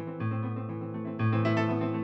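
Keyboard music, piano-like, with a new chord struck about once a second over a low bass note.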